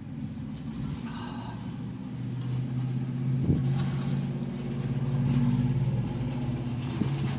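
Motor vehicle engine running with a steady low hum that swells louder through the middle, with a brief higher-pitched sound about a second in and a single click.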